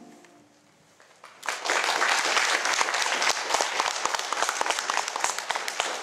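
Audience applauding for a finished cello performance: a quiet pause, then clapping breaks out about a second and a half in and carries on steadily.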